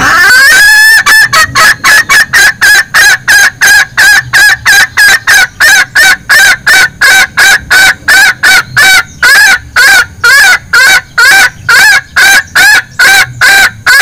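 A junglefowl hen's 'bekikuk' call, the call used to lure males: loud, rapid clucking of about three notes a second. It opens with one longer rising note.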